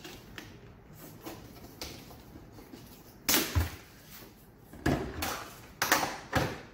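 A hard plastic carrying case being unpacked by hand: a packing sheet rustles loudly as it is pulled off, then the case is set down on a wooden workbench with a knock and a few sharp clicks follow as its front latches are worked.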